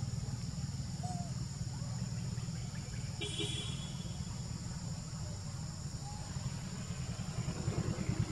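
A motor vehicle engine running steadily at idle, with insects droning steadily at a high pitch behind it. A short sharp high-pitched sound cuts in once a little over three seconds in.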